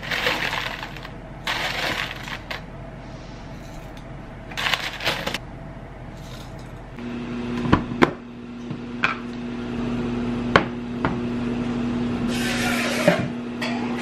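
Dried soup ingredients rustling and pattering into wooden bowls as a paper packet is shaken, in three short bursts. Then come a few sharp plastic clicks as a storage container's lid is opened, over a steady electric hum that sets in about halfway.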